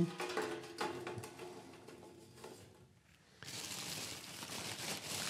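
Potassium perchlorate powder being weighed out by hand: a scoop clicks and scrapes in a metal weighing pan, then about three and a half seconds in a steady hiss of powder and plastic sack rustling as the scoop digs into the sack.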